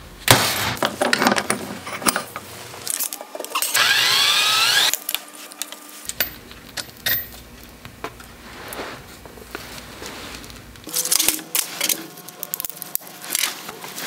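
A sharp metallic strike of a hammer on a center punch, marking steel, just after the start. Then scattered clicks and clinks of small metal parts being handled, and a loud whirring burst of about a second, rising in pitch, about four seconds in.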